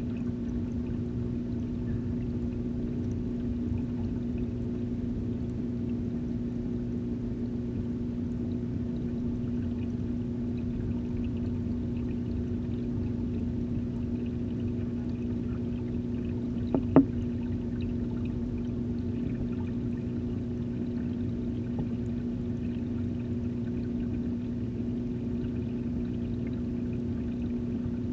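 Steady hum of an aquarium's filter pump and moving water, heard underwater through the camera's housing. About seventeen seconds in there are two sharp knocks close together.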